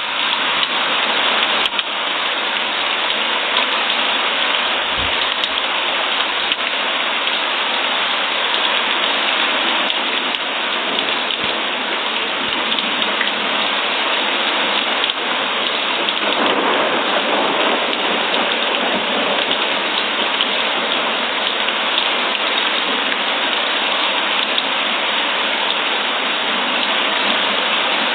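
Rain falling steadily, a dense, even hiss of drops on surfaces.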